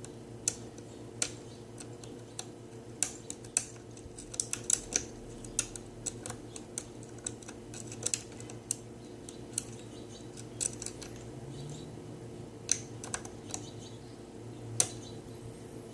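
Steel lock-pick hook working the pins of a five-pin pin-tumbler lock under tension: irregular small, sharp clicks and ticks as the pins are lifted and set, over a low steady hum.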